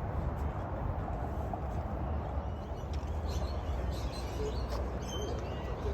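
Short, scattered bird chirps over a steady low rumble.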